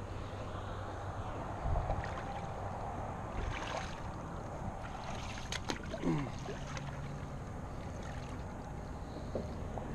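Outdoor wind noise and water lapping against a concrete seawall, a steady hiss with some low rumbles. There are a few sharp clicks about five and a half seconds in and a short falling tone just after six seconds.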